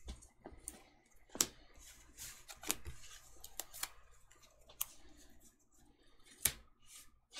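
Sleeved trading cards being handled on a playmat: soft rustling and sliding, with several sharp, irregular clicks as cards are snapped together and set down.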